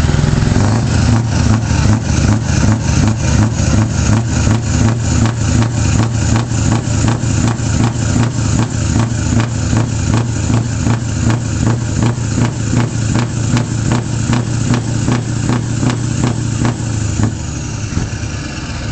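Big truck engine running at a standstill, heard close to its side exhaust, with a strong low drone and a regular pulse about twice a second. The pulsing stops near the end.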